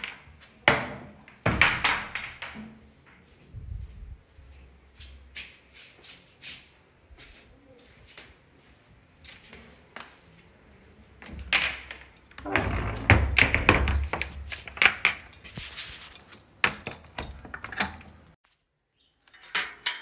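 Irregular thumps, clicks and rustling from a hand-held phone being carried while walking, with low rumbling bursts of handling noise about a second and a half in and again around twelve to fourteen seconds in.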